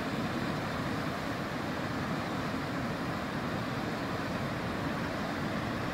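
River rapids: whitewater rushing over rocks in a steady, unbroken roar.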